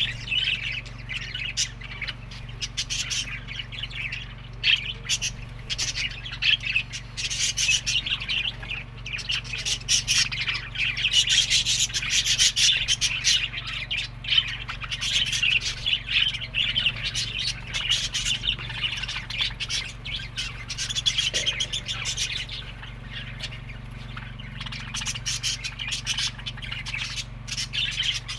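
A flock of budgerigars chattering continuously, many quick chirps and squawks overlapping, over a steady low hum.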